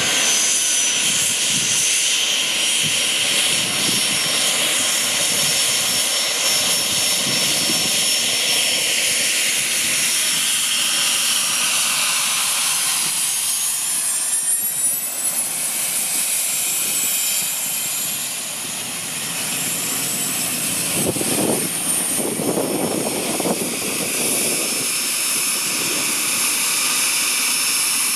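The twin Pratt & Whitney Canada PW615F turbofans of a Cessna 510 Citation Mustang run at taxi power with a steady high-pitched whine over a rushing roar. About halfway through, as the jet turns past, the whine wavers up and down in pitch.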